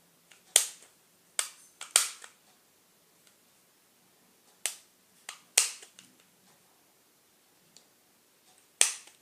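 Camera shutter sounds: a string of about seven sharp clicks at irregular intervals as pictures are taken one after another.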